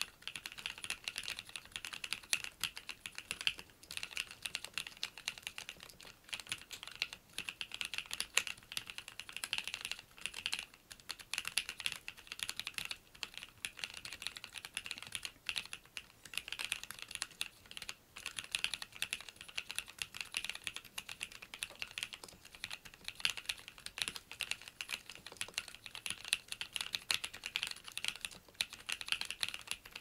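Fast, continuous typing on the GRIN Type-R, a 65% custom mechanical keyboard with MX-style switches: a dense stream of key clacks, with a few short pauses between bursts.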